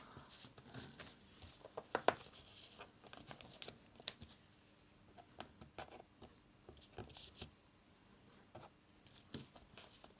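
Faint scattered clicks and scrapes of plastic as a thin tool is run along the seam of a laptop's base panel to pry it open, with a slightly stronger click about two seconds in.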